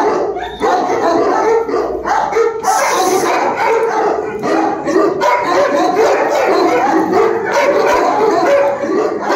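Several large dogs barking together, their barks and yelps overlapping without a break.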